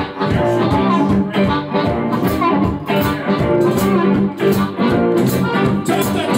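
A live blues band playing: electric guitar over drums, with regular cymbal and drum strokes.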